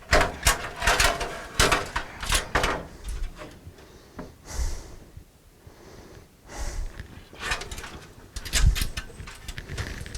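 Clunks, clicks and short sliding scrapes of a desktop PC's motherboard and its metal tray being worked loose and pulled out of the case. A busy run of knocks comes first, then two brief sliding sweeps, then more knocks near the end.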